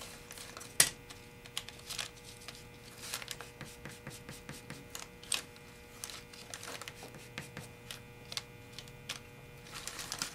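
Dry pastel stick rubbed in short strokes on a sheet of paper, giving scattered scratchy clicks and taps, with one sharp tap about a second in. A steady electrical hum runs underneath.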